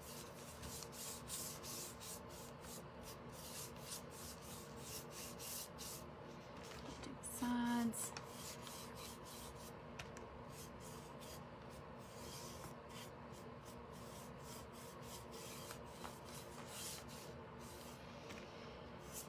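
Paintbrush bristles dry-brushing acrylic paint onto a bare wooden board: quick, scratchy back-and-forth strokes, rough painting for a weathered finish. A short pitched hum breaks in about halfway through.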